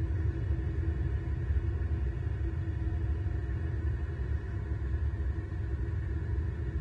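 Road traffic passing on a multi-lane road: cars and trucks going by as a steady low rumble.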